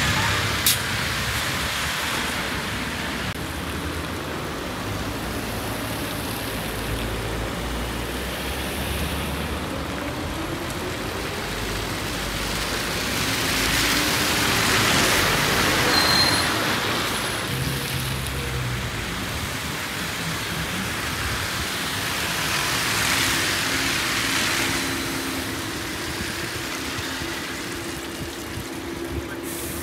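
Buses and other traffic passing on a rain-wet road: steady tyre hiss and engine hum, swelling as vehicles go by about halfway through and again later.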